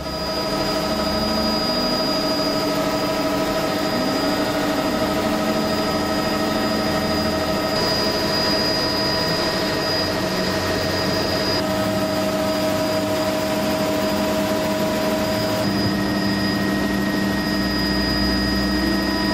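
Steady engine drone heard inside an aircraft's cabin in flight, with several steady tones over a dense rushing hiss. The tone changes abruptly a few times.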